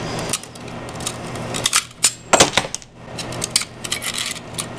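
A T50 staple gun being reloaded: sharp metal clicks and clatter as the magazine is opened, staples go in and it snaps shut. The loudest snaps come a little past two seconds in.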